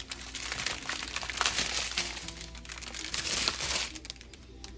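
Small plastic bags of diamond-painting drills crinkling and rustling as they are handled and set down, with quiet background music under it.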